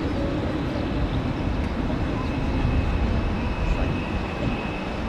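Distant airliner jet engines, the Airbus A330-200's Pratt & Whitney PW4000 turbofans, running on the runway: a steady low rumble with a thin high whine above it.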